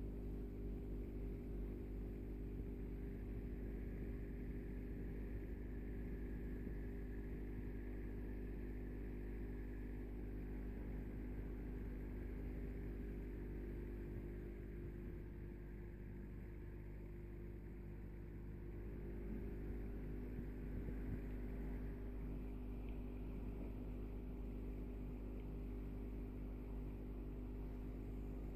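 Aquarium filter and circulation pump running, a steady electric hum.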